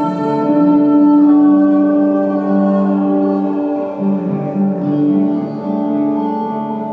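Slow ambient music of long, held electric guitar notes, the chord shifting about a second in and again about four seconds in.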